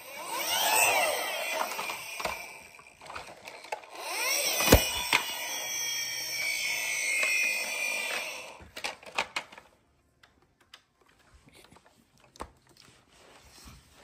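Handling noise from a plastic toy microscope as a slide is pushed under its stage clip: two stretches of rustling and scraping, with one sharp click about five seconds in and a few light clicks around nine seconds in, then mostly quiet with scattered ticks.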